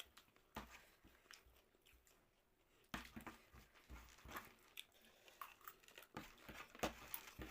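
Quiet, irregular crunching and chewing of crisp jhal muri (spicy puffed rice), a short pause of about a second near the middle, then more frequent crunches.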